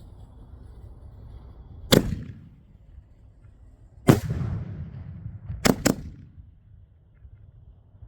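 Five-inch canister noise shells bursting in the air: a sharp report about two seconds in, another about four seconds in, then two in quick succession near the six-second mark, each followed by a rolling echo.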